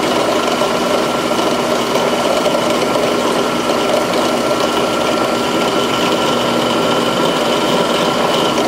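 Electric drill motor running steadily, spinning a small bit that is being touched to a steel knife blade to spot-mark the detent hole.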